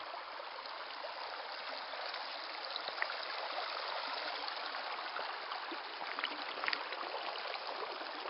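Small stream of water running and trickling over rocks, a steady rushing with a few faint ticks of splashing.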